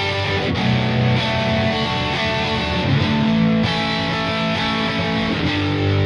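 Squier Bullet HSS electric guitar being played, held notes and chords that change every second or so.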